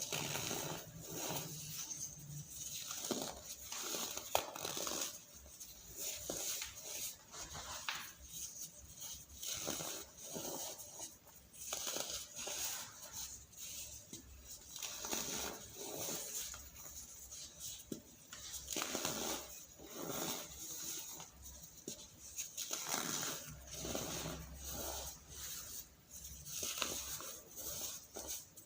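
Chunks of pressed, dusty powder being squeezed and crushed close to the microphone: repeated squeaky crunches with powdery crumbling, a fresh crunch every second or so.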